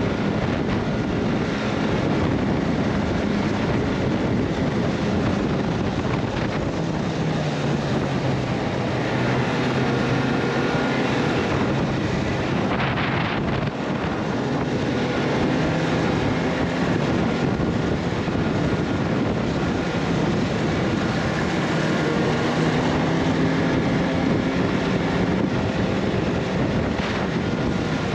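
Motor vehicle running along under way, its engine note drifting slightly up and down beneath heavy wind noise on the microphone.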